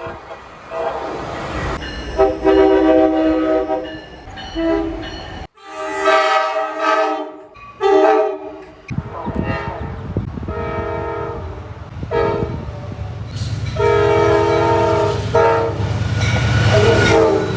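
Amtrak locomotive air horns sounding a series of chord blasts, each a cluster of several steady notes lasting one to two seconds, with abrupt cuts between them. Under the later blasts runs the low rumble of a passing train.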